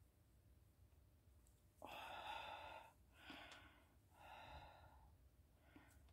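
Faint breathing from a person: a longer sigh-like breath about two seconds in, then two shorter breaths and a last faint one near the end.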